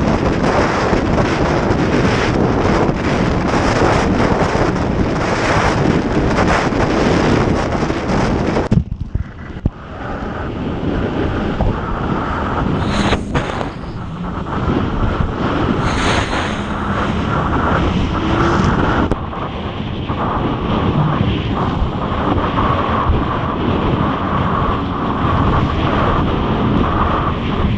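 Wind buffeting the microphone over a Yamaha XLT1200 WaveRunner's three-cylinder two-stroke engine running at speed through rough chop. About nine seconds in the wind rush drops off suddenly and a steadier engine drone comes through for the rest of the ride.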